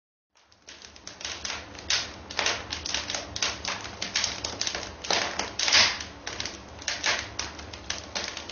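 Rapid, uneven clatter of sharp clicks, like typewriter keys being struck, starting abruptly about half a second in, with a faint low hum beneath.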